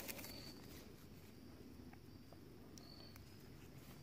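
Near silence: faint woodland ambience with a few brief, high chirps, at the start and again near the end.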